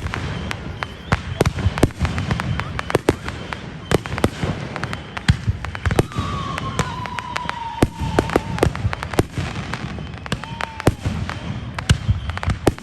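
Fireworks going off in rapid, irregular succession, many sharp bangs and crackles close together. Partway through, a long whistle slides down in pitch for a couple of seconds, and a shorter one follows near the end.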